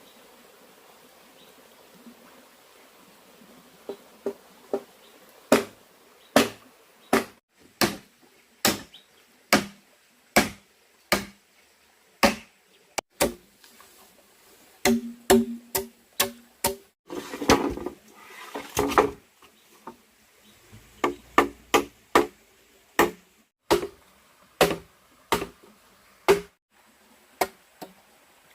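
Repeated sharp strikes of a hand tool, about one or two a second, with a denser, noisier stretch of blows about halfway through.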